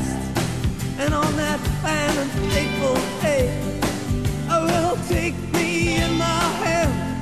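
Background music: a song with a lead singer over drums and bass, the drum hits keeping a steady beat.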